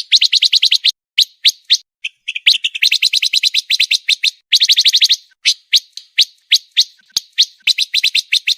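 Pancawarna songbird singing a fast, dense song: rapid runs of about a dozen sharp high notes a second, broken by short pauses.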